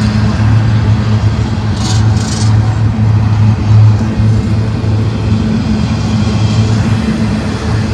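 Empty double-stack intermodal well cars of a freight train rolling past on jointed track, with a steady low rumble of steel wheels on rail. Two brief high-pitched bursts sound about two seconds in.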